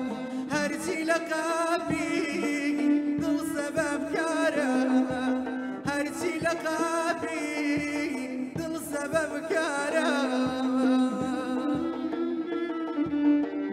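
Kurdish traditional ensemble music: a hand drum played with the fingers keeps a steady beat under a wavering, ornamented melody line of singing and bowed strings.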